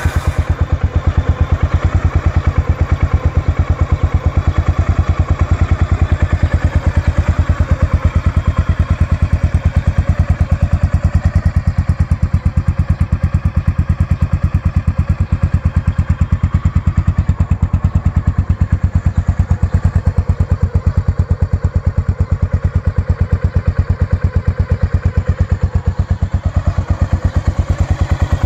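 1988 Honda XBR 500's single-cylinder 500 cc engine idling steadily right after start-up, with an even, regular beat of exhaust pulses.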